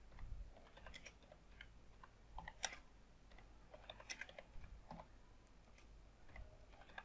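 Faint typing on a computer keyboard: irregular keystrokes in short runs.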